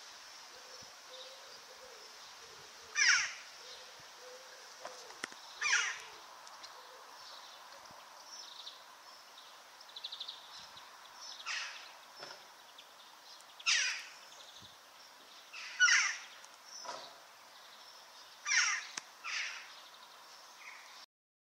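Western jackdaw calling: a series of short, sharp calls at irregular intervals over steady outdoor background noise. The recording cuts off abruptly near the end.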